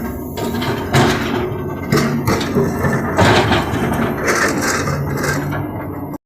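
Backhoe loader working: a diesel engine running under a dense mechanical noise, with sharp knocks and clanks about once a second, likely the bucket and arm working, before the sound cuts off abruptly near the end.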